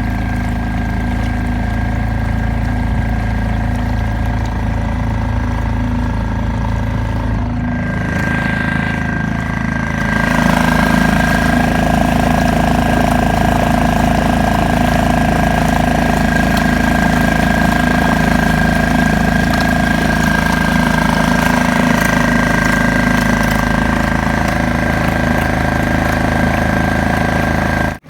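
Suzuki 2.5 four-stroke single-cylinder outboard motor running steadily under way. About eight to ten seconds in it speeds up and gets louder, then holds the higher speed.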